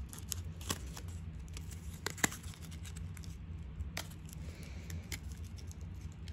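Clear plastic blister pack of a memory card being pried and bent open by hand, giving a few sharp, scattered clicks and crackles over a low steady hum.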